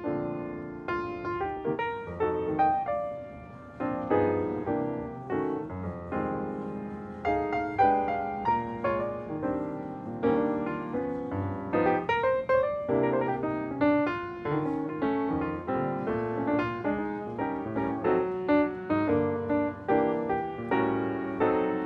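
Background music: a solo piano playing a steady run of struck notes that ring and fade.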